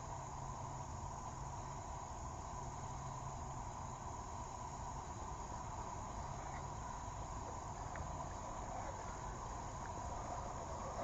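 Faint, steady drone of insects with a low rumble underneath and a few small clicks.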